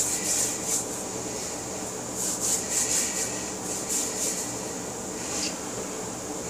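Hands rubbing against pie-crust dough, brushing and smoothing, in several short bursts of quick strokes.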